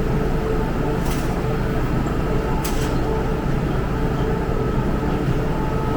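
MTR M-train electric multiple unit standing at a metro platform: a steady hum and rumble from its equipment, with two short hisses of air about a second and two and a half seconds in.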